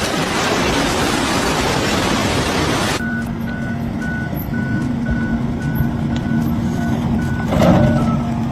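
Loud rushing noise for about three seconds, then a vehicle's reversing alarm beeping about one and a half times a second over a steadily running engine.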